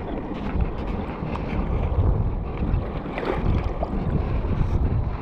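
Wind buffeting the phone's microphone in a loud, uneven rumble, over small waves lapping at a sandy shore.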